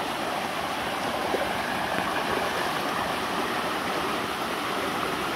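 Shallow stream running steadily over rocks and small rapids, a continuous even rush of water.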